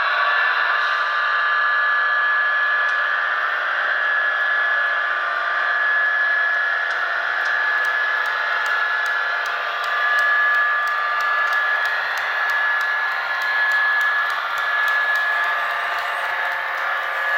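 HO scale model train running on its track: a steady whine from the locomotive's electric motor and gearing, with the rolling noise of the wheels. Light, regular clicking joins in about halfway through.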